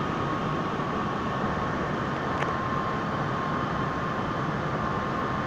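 MTR M-Train electric multiple unit running into the station behind closed platform screen doors: a steady rumble with a steady high whine and one faint click about halfway through.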